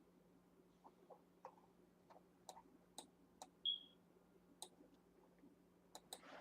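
Faint, irregular clicks of a computer mouse being clicked, about a dozen of them, over a low steady hum. A short, high beep sounds a little past halfway and is the loudest thing heard.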